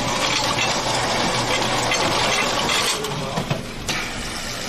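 Soda fountain pouring into a cup: a steady rushing hiss for about three seconds, then a shorter second pour.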